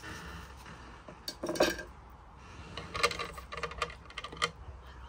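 Metal kebab skewer and serving dishes clinking and scraping as kebab pieces are slid off the skewer onto a platter: a short clatter about one and a half seconds in, then a string of separate clinks a little later.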